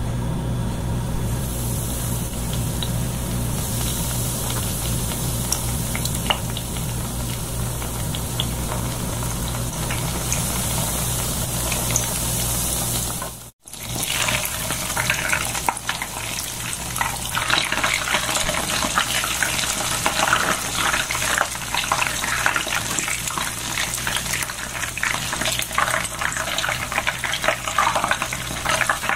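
Crumb-coated hotdog rolls frying in hot oil, a steady sizzle. After a break about halfway through, the sizzle comes back busier, with dense crackling pops.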